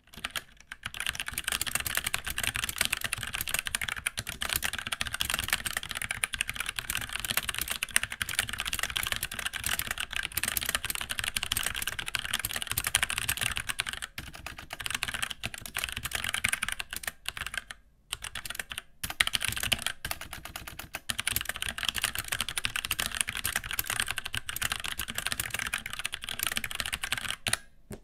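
Continuous typing on a Magicforce 68 mechanical keyboard with Outemu Brown switches, a tactile Cherry MX clone, and its stock keycaps: a dense clatter of key presses, with a few brief pauses past the middle.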